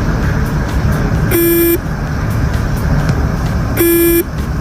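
250GB mechanical hard drive in a USB enclosure, powered up and giving a short buzzing beep twice, about two and a half seconds apart, over a steady low noise. It is the abnormal sound of a dead drive that the computer can no longer recognise.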